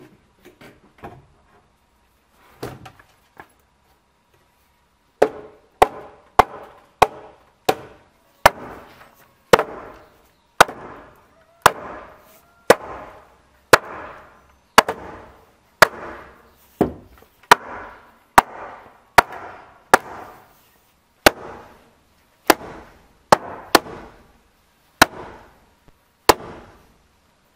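Wooden mallet striking timber beams, knocking the joints of a wooden house frame together: a few light taps, then from about five seconds in a steady run of sharp knocks about one a second, each ringing briefly in the wood.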